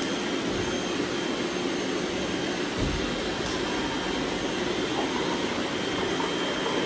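Several robot vacuums running at once, a steady whirring hum of motors and brushes with a faint high whine. A brief low thump about three seconds in.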